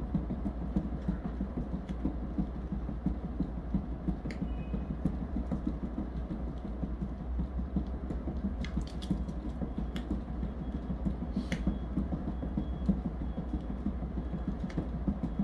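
Cat exercise wheel turning as a cat walks in it: a continuous low rumble with a fast, uneven patter from the rolling wheel, and a few light clicks in the middle.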